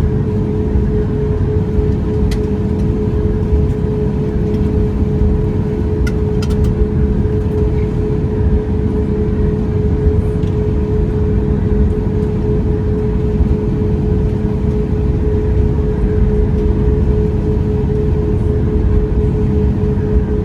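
Boeing 737 MAX 8 cabin noise: a steady rumble of engine and airflow with a constant hum, and a few faint clicks.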